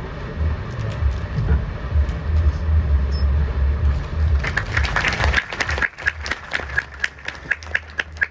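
Scattered handclapping from the audience begins about four and a half seconds in and thins to a few steady claps about three a second. Under the clapping, for the first half, there is a low rumble.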